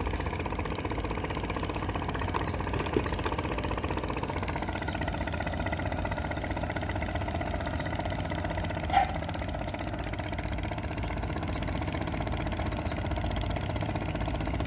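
A small engine running steadily at low revs, with two short sharp clicks, one about three seconds in and one about nine seconds in.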